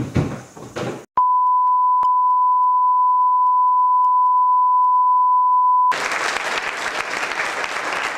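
A steady single-pitched beep tone, like a censor bleep, starts about a second in and holds for nearly five seconds, then cuts off sharply into loud applause.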